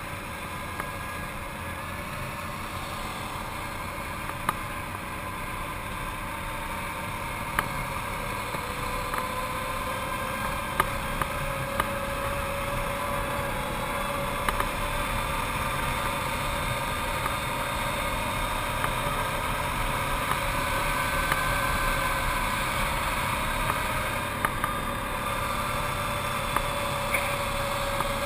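Arctic Cat TRV 1000 ATV's V-twin engine running steadily under way, its drone drifting slowly up and down in pitch, with scattered sharp clicks.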